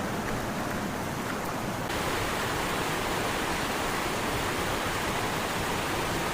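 Steady rush of the Allerheiligen waterfalls cascading down rock, with a slight change in the sound about two seconds in.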